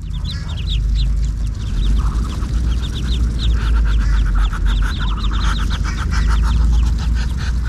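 Muscovy ducklings peeping, a run of short high peeps several a second, over a steady low rumble.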